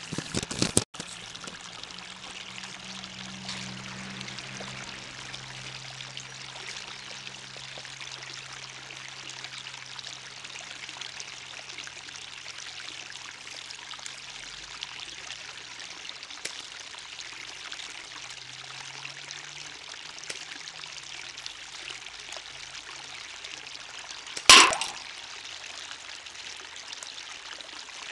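Steady flowing-water hiss with a faint low hum, and a few knocks at the very start. About 24 seconds in comes one loud, sharp impact with a brief ring: a BB hitting the aluminium drink can that stands close by, three-quarters full of water.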